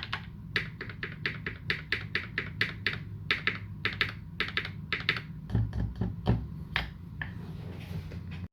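Typing on a custom UTD360C 60% mechanical keyboard with modded, linear Gateron Ink Black v2 switches and GMK Dolch keycaps: a run of quick key strikes, several a second. A few heavier, deeper strikes come about five and a half to six and a half seconds in, and the typing stops about seven seconds in, leaving a low steady hum.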